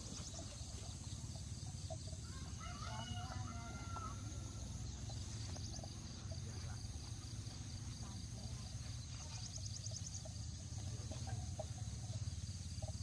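A rooster crows once, about three seconds in, over a steady low rumble of outdoor background noise. Short, high insect trills come near the start and again about ten seconds in.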